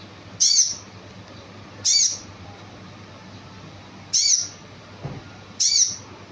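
A lure call for the bird that Indonesian keepers call konin: a short high-pitched call repeated four times, about every one and a half seconds, over a steady low hum.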